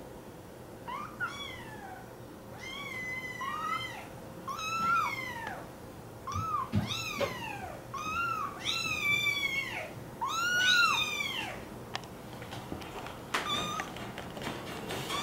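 American Curl kitten meowing over and over, about ten high calls that rise and fall in pitch, then falling quiet with a few light clicks near the end.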